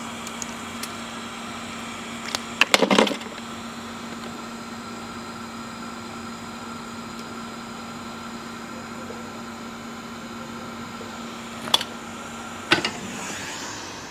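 Steady electrical hum on a repair bench, with a quick cluster of clicks and knocks about three seconds in and two more clicks near the end. With the last click the hum stops and a hot air rework gun starts blowing with a rushing hiss, ready to lift a flux-coated IC off a phone motherboard.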